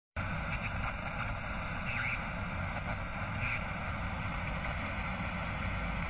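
A Zetor tractor and a forage harvester running side by side while chopping maize: a steady machinery drone, strongest in the low engine range.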